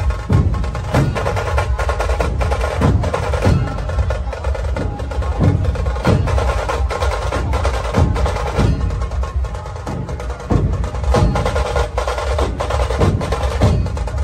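Loud percussion-heavy music: sharp, evenly repeated drum strikes over a steady backing of held tones.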